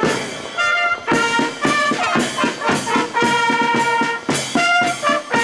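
Marching fanfare band playing a tune, brass horns carrying the melody over drums beating a regular march rhythm.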